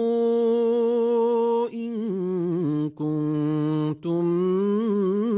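A male reciter chanting the Quran in a melodic tajweed style. He holds a long, steady note, then moves into wavering, ornamented notes with two short breaths.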